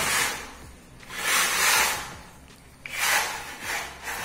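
Sections of an aluminium telescopic levelling staff sliding against each other by hand: a scraping hiss in three strokes about a second and a half apart, then a short click near the end.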